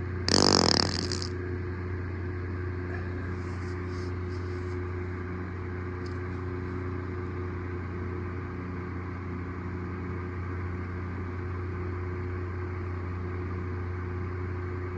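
A single fart lasting about a second, just under half a second in, fluttery and loud. It sits over a steady low hum.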